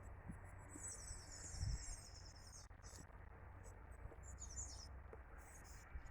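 A small songbird singing faintly: a quick run of high, rapid chirping notes about a second in and a shorter run about four seconds in. Beneath it runs a low rumble of wind, with one soft thump.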